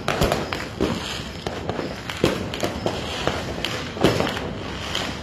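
Fireworks going off: a run of sharp bangs and crackles at uneven intervals, the loudest about four seconds in.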